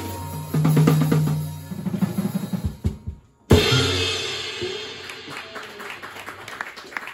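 Jazz quartet of drums, saxophone, keyboard and upright bass ending a tune: a drum fill under the band, a short break, then one final hit with the closing chord ringing out and fading. Scattered clapping starts near the end.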